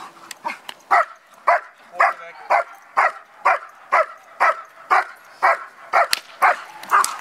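A long-coated German Shepherd barking in an even rhythm, about two barks a second, at a decoy's bite sleeve during protection training.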